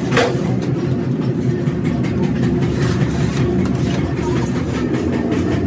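Steady low mechanical rumble of machinery running, with one sharp knock near the start.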